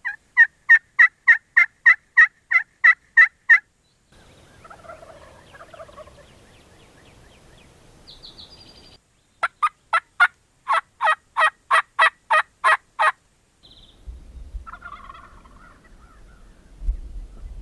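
Two long runs of loud, evenly spaced turkey yelps, about three to four notes a second, each note breaking from high to low. In the gaps, wild turkey gobblers gobble faintly, a small bird chirps once, and a low rumble comes in near the end.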